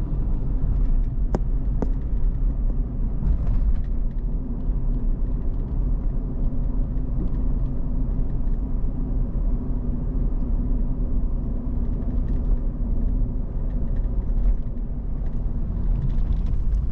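Pickup truck driving: a steady low rumble of engine and road noise.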